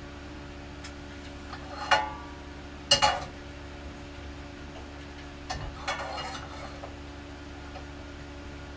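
Kitchen pots and utensils clanking and knocking a few times, some strikes ringing briefly, while a pot is readied for heating oil. The loudest is a pair of knocks about three seconds in. Throughout there is a steady low hum.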